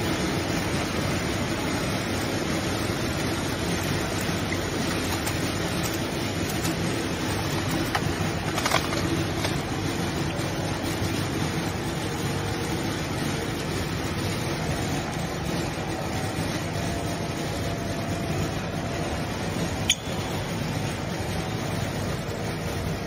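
Steady running noise of processing machinery, with a sharp click about nine seconds in and another near twenty seconds.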